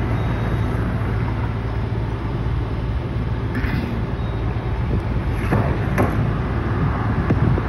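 Gas station fuel pump running while dispensing fuel: a steady low hum with a noisy rush, and a few light clicks in the second half.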